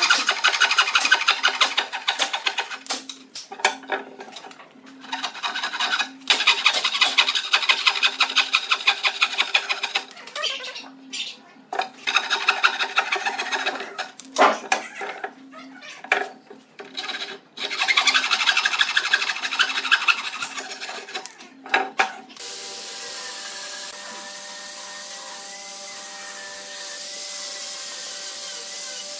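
Hand frame saw cutting through pine strips in quick back-and-forth strokes, in several spells broken by short pauses. About 22 seconds in the sawing stops and a quieter steady background with held tones is left.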